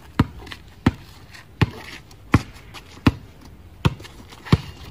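A basketball dribbled on a concrete driveway: a steady run of seven sharp bounces, about one and a half a second.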